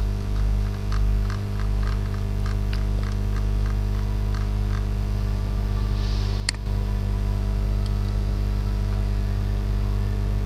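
Steady electrical hum with faint ticking through the first few seconds as a mouse scroll wheel turns, and one sharp click about six and a half seconds in.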